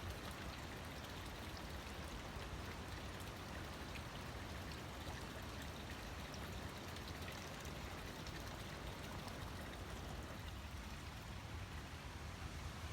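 Steady, faint rush of a flowing river or stream, with small scattered splashes.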